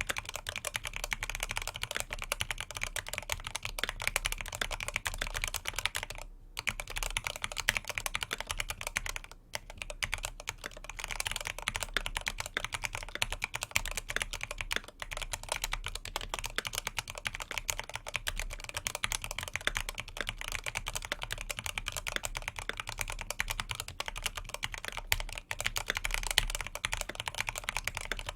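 Continuous fast typing on an FX2 tenkeyless mechanical keyboard with factory-lubed C3 Equalz Banana Split linear switches and dye-sub PBT keycaps. A steady stream of keystroke clacks pauses briefly about six and nine seconds in.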